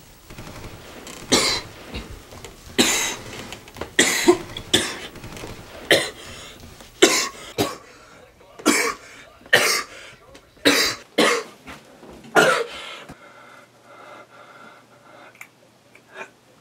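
A young man coughing again and again, about a dozen coughs roughly a second apart, easing off after about twelve seconds.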